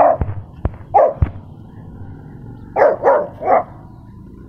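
Dog barking: a bark at the start, another about a second in, then three quick barks in a row near three seconds, with a few sharp clicks in between.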